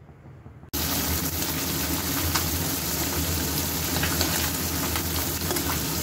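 Small puti fish (pool barb) frying in hot oil in an aluminium kadai: a steady sizzle with scattered pops and crackles, starting abruptly under a second in.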